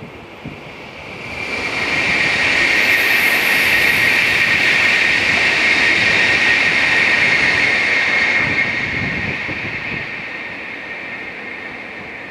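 Tokaido Shinkansen N700-series bullet train passing at speed: a rushing sound with a strong high hiss that builds over about two seconds, holds for several seconds, then slowly fades as the train goes by.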